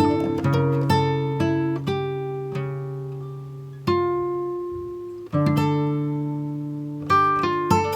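Background music of a plucked guitar: notes and chords are struck and ring out, dying away, with two long held chords near the middle.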